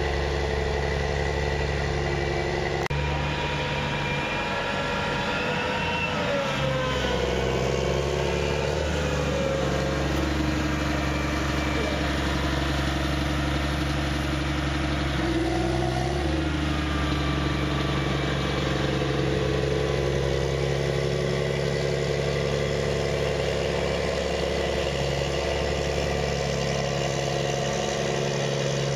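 Caterpillar Challenger rubber-tracked tractor's diesel engine running under load while working a silage heap with a push blade. The engine note rises and falls a couple of times, and the sound changes abruptly about three seconds in.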